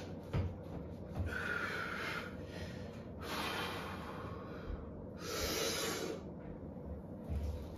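A man breathing hard through his nose and mouth while setting up and pulling a heavy barbell deadlift: three long breaths about two seconds apart, with a few low knocks near the start and again near the end.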